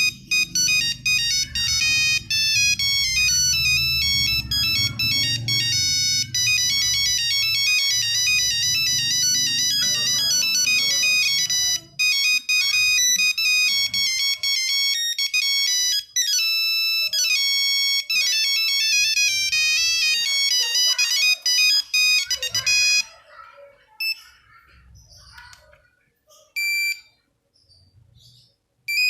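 Nokia 3310 playing a monophonic ringtone: a fast melody of electronic beeps, over a low rumble in the first half. The melody stops about three-quarters of the way through, then a couple of short single beeps follow.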